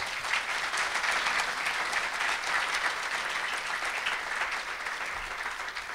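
Audience applauding: many hands clapping together, fading slowly near the end.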